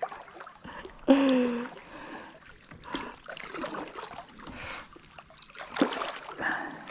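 Shallow, muddy water splashing and trickling in small, irregular splashes. A brief low hum of a man's voice about a second in.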